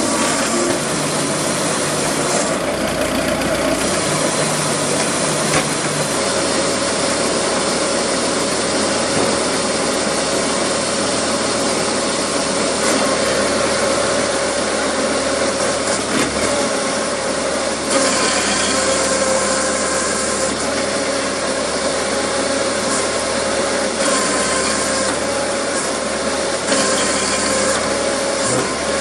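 A Massey-Harris Model 30 tractor running at PTO speed, driving a homemade wood splitter's step-up gearing and single-stage hydraulic pump: a loud, steady mechanical din with a constant whine. The sound shifts slightly about six seconds in and again near eighteen seconds as the splitter is worked.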